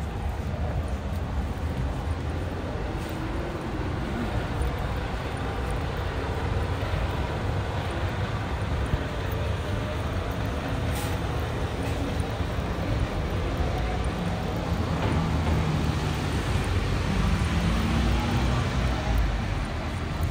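Road traffic on wet city streets: a steady hum of passing vehicles and tyre noise, with a heavier engine hum swelling in the last few seconds.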